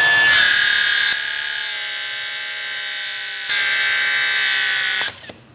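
ILSCO 6-ton inline battery-powered hydraulic crimp tool running its motor and pump through a crimp: a steady high-pitched whine that sinks slightly in pitch as it works and dips in loudness for a couple of seconds in the middle. It cuts off abruptly about five seconds in as the crimp completes.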